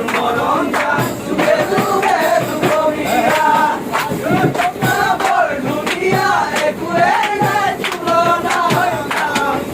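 Background music: a song with voices singing over a steady percussive beat.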